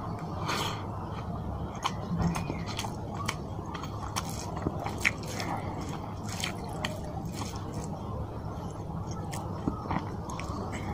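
Close-miked eating sounds: fingers squishing white rice into fish curry gravy, and chewing, with many irregular wet clicks.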